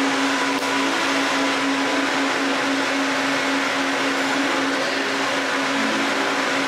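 Disneyland Monorail running, heard inside the cabin: a steady electric motor hum over rolling noise, its tone dropping a little near the end.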